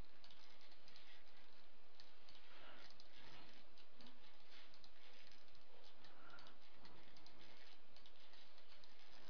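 Faint clicks of a computer mouse over a steady hiss of background noise.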